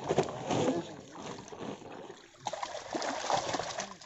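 Shallow lake water sloshing and splashing as men wade and gather in a wet cast net, with voices talking at times.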